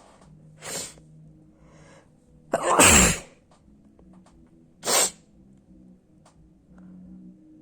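A person sneezing: a softer burst just before a second in, a long loud sneeze about three seconds in, and a short sharp one near five seconds.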